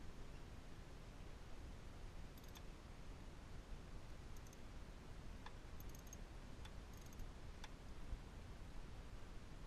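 Small socket ratchet worked by hand, giving a few scattered faint clicks over a steady low hiss.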